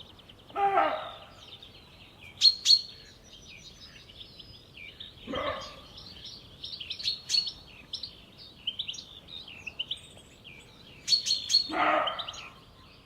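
Alarmed roe deer buck barking, three short, hoarse, dog-like barks about five seconds apart. Birds twitter throughout, with a few sharp, loud chirps.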